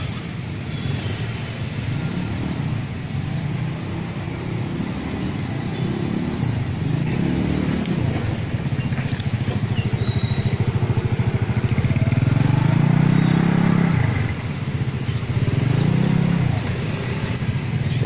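Engines of passing road traffic, likely small motorcycles, droning past. The sound swells and fades several times and is loudest about two thirds of the way through.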